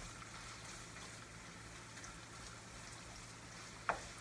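Pork belly and green beans sizzling steadily in a frying pan while being stirred with a wooden spatula, with one sharp knock of the spatula against the pan near the end.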